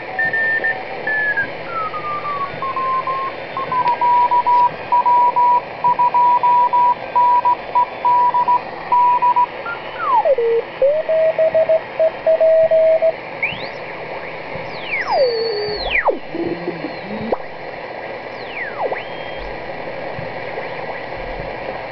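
Sproutie general-coverage HF regenerative receiver tuning across the 20 m amateur band: band hiss with beat-note whistles sliding in pitch as the dial turns. A Morse code (CW) signal is keyed as an on-off tone for several seconds, then a lower-pitched CW signal briefly. More whistles sweep down and up near the end.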